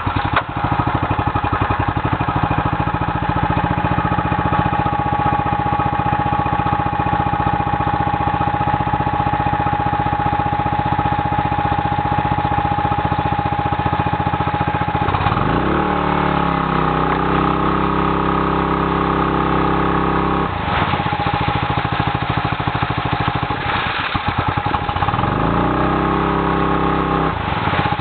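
Gaishin SR-50M portable engine water pump running. The engine runs steadily, then its revs rise about halfway through and hold for several seconds before dropping back, and rise again near the end. Meanwhile the pump primes and begins discharging water.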